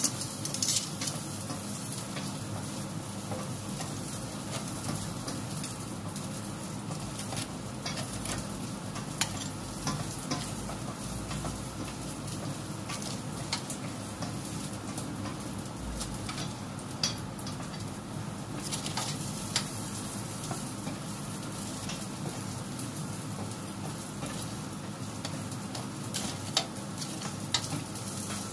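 Steady sizzling hiss with scattered small crackles and clicks, from honey-glazed chicken wings just cooked in an air fryer.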